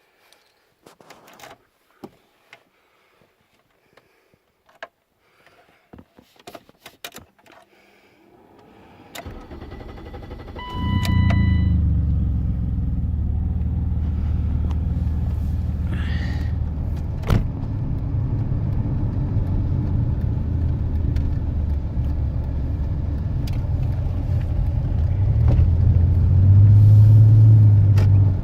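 Scattered light clicks, then a BMW E32's M30 straight-six comes to life about ten seconds in and runs steadily with a low rumble. A short electronic chime sounds as it starts, and the engine grows deeper and louder near the end.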